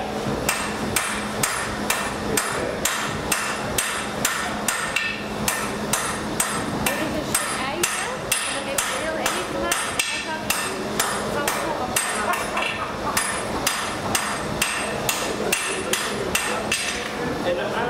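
Blacksmith's hand hammer striking red-hot iron on an anvil: a steady, even run of ringing metal blows, about two to three a second, stopping just before the end. A low steady hum runs underneath.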